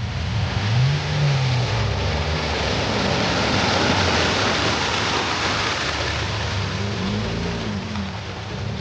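Off-road vehicle driving on a trail: the engine rises and falls in pitch a couple of times over a steady rushing noise.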